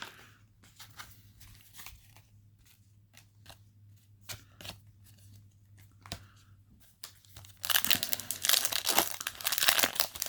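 Scattered light clicks and taps of trading cards being handled. Then, near the end, a foil booster-pack wrapper is torn open and crinkled, loud and crackly.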